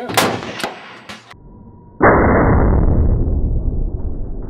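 A rifle shot with a ringing tail just after the start, followed by a couple of fainter sharp knocks. About two seconds in, a sudden loud, dull rushing noise begins and slowly eases.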